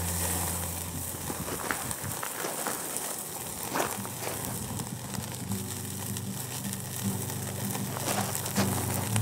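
Crackling and sizzling of a bone-in ribeye searing on a grill set directly over a charcoal chimney, with scattered pops as rendered fat drips onto the hot coals and flares up.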